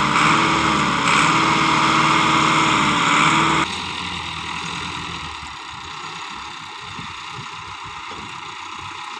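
Massey Ferguson tractor's diesel engine running steadily under load, driving a PTO straw chopper-thresher, with the rush of chopped wheat straw over it. About three and a half seconds in the sound drops abruptly to a fainter, uneven rumble.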